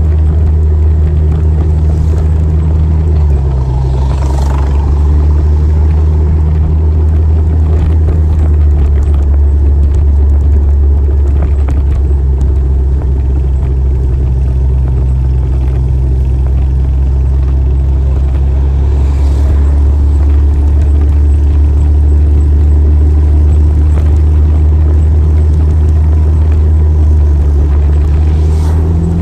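Motorcycle engine running while riding, a steady low rumble whose pitch steps up or down a few times as the speed changes.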